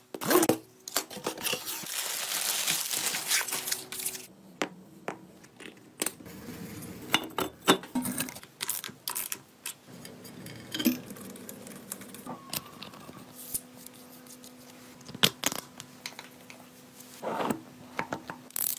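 Small metal parts being handled and fitted on a Soviet boxer-twin motorcycle engine: scattered clicks, clinks and knocks. A rustling hiss fills the first few seconds, and a faint steady hum sits underneath later on.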